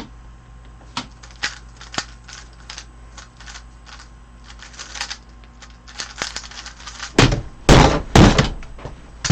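Quick clicking of a 3x3 Rubik's cube turned fast in a speedsolve, lasting about six seconds. Near the end come three loud slaps of hands on the speedcubing timer, which fails to stop on the first tries.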